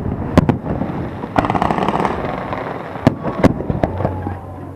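Aerial fireworks bursting: sharp bangs near the start, a dense crackling spell about a second and a half in, then several more bangs around three seconds in.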